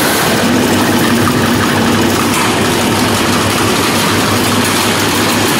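Chain link mesh machine running steadily, drawing wire through its die and turning it out as cut zigzag strands: a steady drone over dense mechanical noise.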